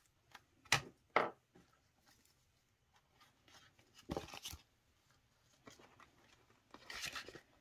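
Two sharp clicks about a second in, then the rustle of paper cash envelopes and banknotes being picked up and handled.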